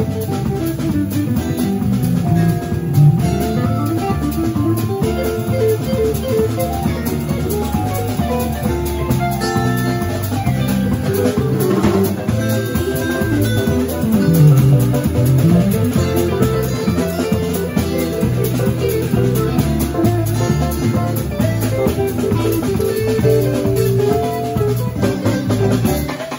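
Live instrumental band: a Telecaster-style electric guitar and a steel-string acoustic guitar playing over a drum kit, with a couple of low sliding notes, about three seconds in and again around the middle.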